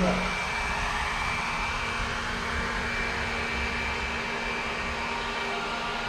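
ILIFE robot vacuum cleaner running as it cleans the floor: a steady whir from its suction fan and brushes, with a thin high whine over a low hum.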